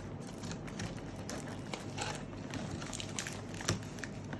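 Scattered light clicks and rustles of drone packaging and parts being handled, one sharper knock about three and a half seconds in, over a steady low hum.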